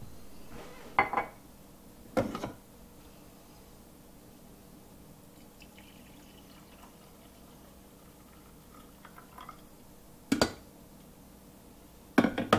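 Glass carafe of a Keurig drip coffee maker knocking and clinking as it is lifted out and later set back, with a faint pour of coffee into a ceramic mug in between.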